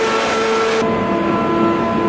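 Hydraulic forging machinery running steadily: a dense mechanical din with several held whining tones that switch pitch every half second or so, the top end turning dull about a second in.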